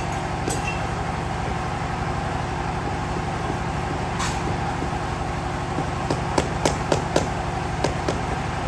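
A rubber mallet knocks a square floor tile down into its wet mortar bed: a single knock about four seconds in, then a quick series of short sharp knocks near the end. Under it a motor hums steadily.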